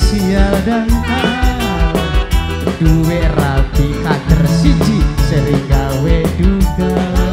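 Loud live tarling band music with a steady drum beat, a bass line and a wavering melody line on top.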